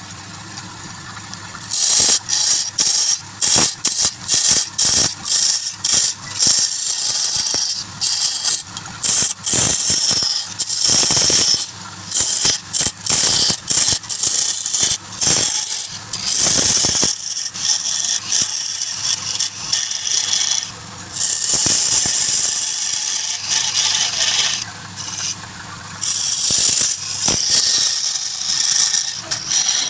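Woodturning tool cutting wood as it spins on a lathe, in many short cuts with brief pauses between, starting about two seconds in; a hissing, scraping sound.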